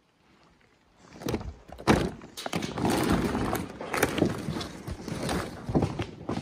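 Boots stepping onto and across a loose pile of old wooden roof shingles, the thin boards knocking and clattering underfoot. It starts about a second in, with the loudest knock about two seconds in.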